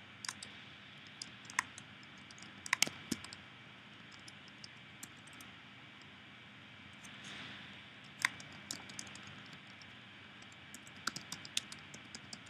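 Computer keyboard typing: irregular clusters of key clicks, with a pause of a few seconds midway.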